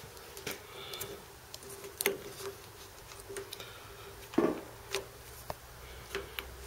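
Handling noise: scattered light clicks and knocks as a hand handles the wiper spindle's cap and nut. The loudest knock comes about two-thirds of the way through.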